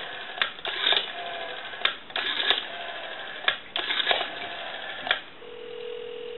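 Rotary dial of a Western Electric 202 desk telephone being turned and running back, giving a string of irregular clicks and rattles. About five and a half seconds in, a steady ringback tone starts as the dialed number rings.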